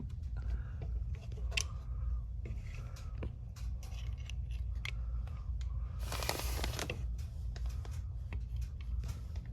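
Scattered clicks and scrapes of a PEX crimp tool being set on a crimp ring and squeezed to crimp a new elbow fitting, with a short rasping scrape about six seconds in.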